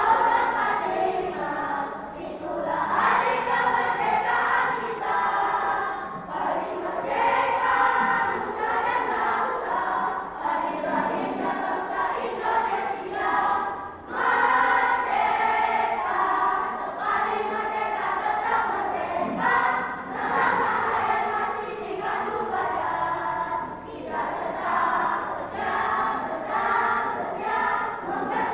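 Elementary school children's choir singing in unison and parts, with a short break between phrases about halfway through.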